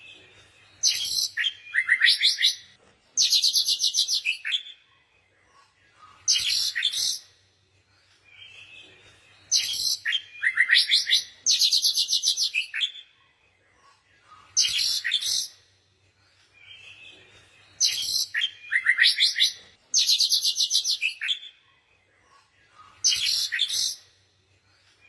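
Small birds chirping, with quick high trills and rapid chirp runs in bouts a few seconds long and quieter gaps between. The same pattern of bouts comes round about every nine seconds.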